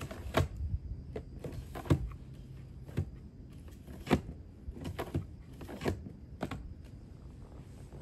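Plastic drawers of a small storage drawer unit being slid and knocked open and shut: a run of sharp plastic clacks and knocks, about eight, irregularly spaced.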